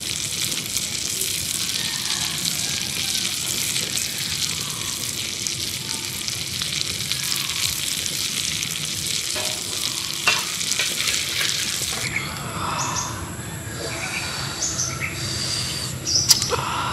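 Giant prawns and chilli-garlic oil sizzling and crackling on a hot stone slab over a wood fire, a steady hiss. About twelve seconds in it cuts to quieter outdoor sound with scattered short chirps, and a sharp click comes just before the end.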